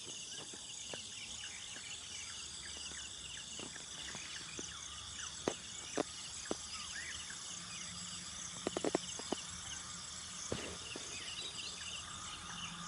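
Steady high-pitched insect chorus chirring outdoors. Sharp clicks cut in a few times after the middle, with a quick cluster of them about nine seconds in.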